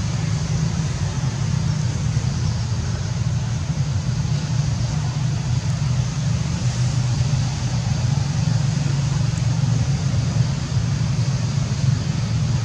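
Steady low rumble with an even hiss above it, like road traffic.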